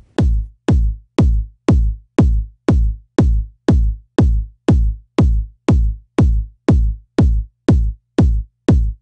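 Looped electronic kick drum, synthesized in Logic's ES2 synth and layered with a sampled kick, hitting steadily about twice a second. Each hit is a sharp click that falls in pitch to a deep thump, shaped by overdrive, an envelope shaper and a limiter.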